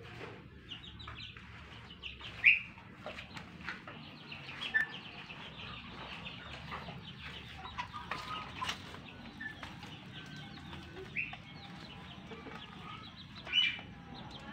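Chicks and young fighting-breed chickens peeping and clucking, a steady stream of short high calls with a few louder calls standing out, the loudest about two and a half seconds in and another near the end.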